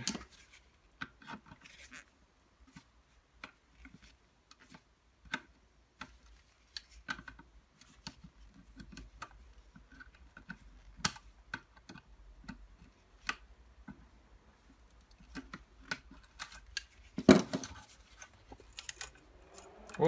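Light metallic clicks, scrapes and small rattles of long-nose pliers and loose parts as the carbon-brush holder is worked off an Electrolux Mondo 5105 vacuum cleaner's motor. One louder knock comes about 17 seconds in.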